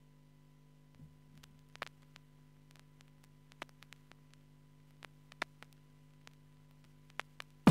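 Faint steady electrical hum from the DJ setup, with scattered irregular clicks and pops from about a second in: vinyl crackle as the turntable stylus rides the record's run-in groove.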